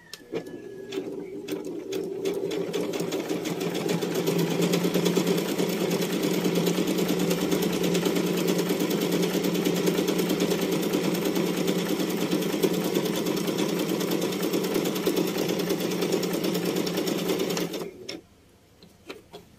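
Pandora House electric sewing machine stitching through fabric at speed, the motor and needle running in a fast even patter. It picks up speed over the first few seconds, runs steadily, and stops abruptly near the end.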